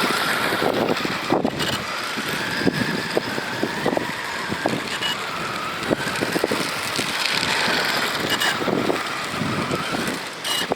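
Kyosho Beetle 2WD radio-control buggy driving: its small electric motor whines, the pitch rising and falling with the throttle. Scattered knocks and crunches come from the tyres and chassis on rough ground.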